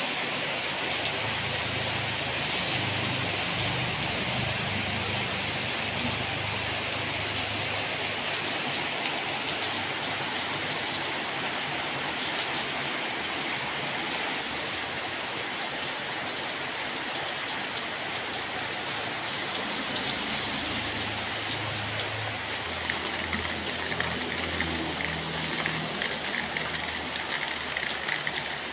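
Steady rain falling on a garden, a continuous even hiss. In the last few seconds sharper individual drops stand out.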